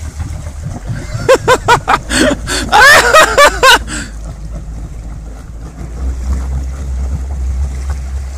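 Jeep Cherokee engine running with a low steady rumble as it wades through deep water, with water sloshing and churning around the body, the rumble growing stronger near the end as the exhaust bubbles out under the water at the rear. Loud voices break in from about one to four seconds in.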